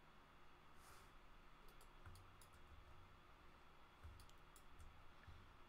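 Near silence with a scattering of faint, quick clicks from a computer mouse and keyboard being worked.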